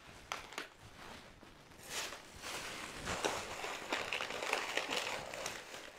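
Rustling and crinkling of snack packaging being handled, starting about two seconds in, with a few light knocks.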